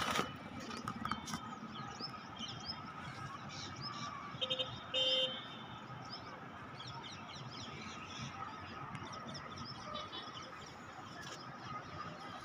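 Outdoor ambience with small birds chirping throughout and a vehicle horn beeping twice in quick succession about four and a half seconds in.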